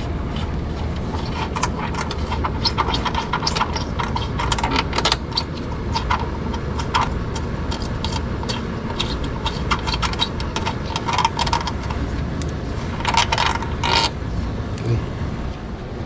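Metal clinks, taps and scrapes from hands working at the compressor's base mounts in a window air conditioner, during a change of the compressor's rubber mounts. A steady low hum runs underneath.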